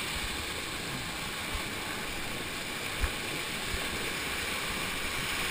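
Steady rushing of a small canyon waterfall cascading over granite, with a few dull low knocks, the loudest about three seconds in.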